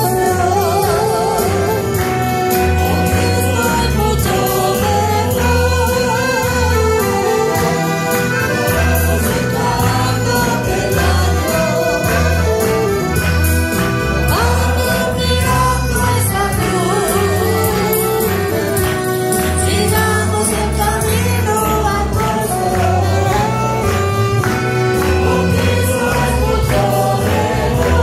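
Church chorus sung by voices through microphones, accompanied by a piano accordion and a saxophone over a steady, rhythmic bass beat.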